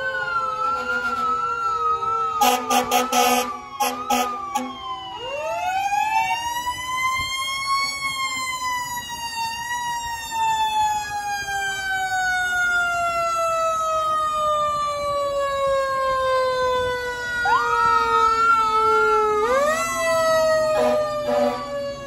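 Fire truck sirens. A mechanical siren winds up over a few seconds and then slowly coasts down in pitch, over an electronic siren warbling quickly. Short horn blasts come about two seconds in and again near the end.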